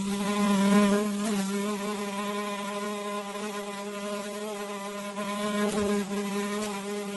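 A fly buzzing close by: one steady hum whose pitch wavers slightly. It starts suddenly.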